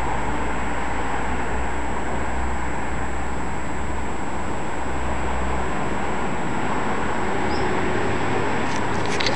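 Steady outdoor city background noise with a low rumble that fades about six seconds in. A single short high chirp comes near the end, followed by a few sharp clicks.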